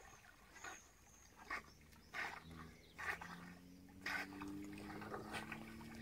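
Rottweilers swimming and breathing hard, with short heavy breaths about once a second. A low steady hum comes in about halfway through.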